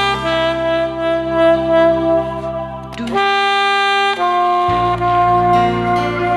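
Saxophone playing a slow melody in long held notes over a karaoke backing track, changing note about three seconds in.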